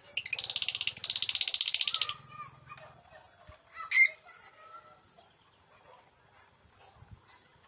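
Lovebird giving a fast, rapidly pulsed chattering call for about two seconds, then one sharp high chirp about two seconds later.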